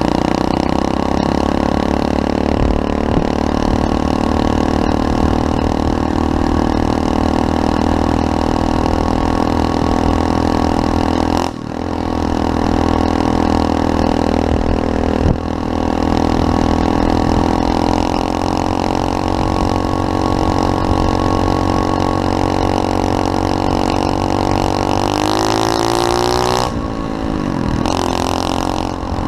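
SSR 125cc pit bike's single-cylinder four-stroke engine running hard while being ridden, holding steady revs for long stretches. There is a brief drop in revs about eleven seconds in, and near the end the revs climb, fall away sharply, then pick up again.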